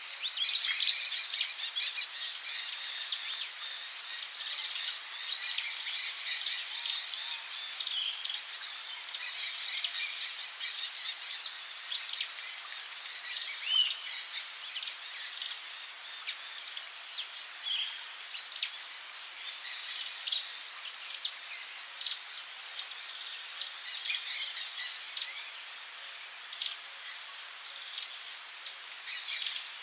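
Forest ambience: a steady high insect drone with many short bird chirps and calls scattered throughout.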